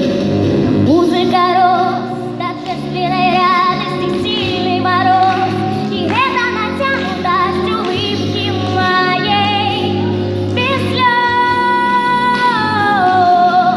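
A girl singing a ballad with strong vibrato over instrumental accompaniment, holding a long note that steps down near the end.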